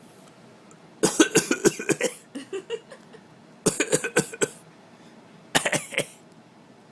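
An adult's deliberate, fake coughing in three short bouts of quick coughs: a longer run about a second in, then shorter bouts near the middle and near the end.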